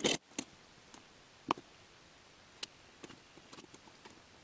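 Scattered light clicks and taps of cell parts being fitted by hand: a white support frame slid down threaded rods and a stainless steel plate laid onto it. One tap about a second and a half in rings briefly.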